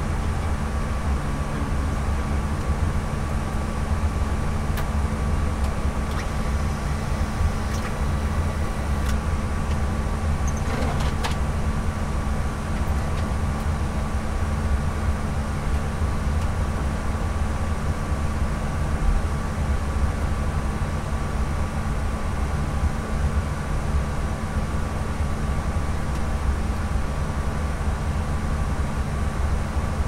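Airbus A320 flight-deck noise in flight: a steady rush of airflow and a deep engine rumble, with a steady hum and a fainter high whine from the cockpit equipment. A few faint clicks come in the first third.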